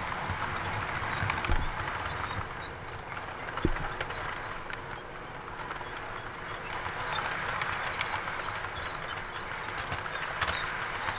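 Model railway train, a diesel locomotive hauling tank wagons, running along the track with a steady motor and wheel rumble. A few sharp clicks from the wheels on the rails, one near the end.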